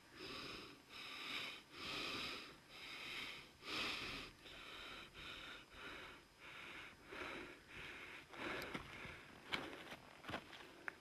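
A man's quiet, heavy breathing, a rapid run of breaths, about one and a half to two a second. Footsteps on a dirt path start near the end.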